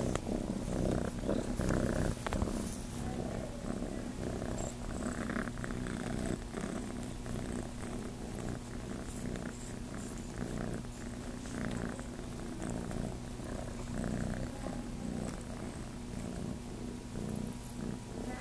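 Tabby kitten purring steadily, right up close, while it nuzzles in looking to nurse.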